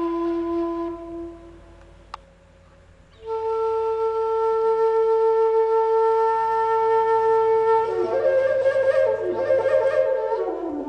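Solo flute playing a slow melody: a long held note that fades into a short pause, then a higher held note that breaks into quick ornamented runs near the end.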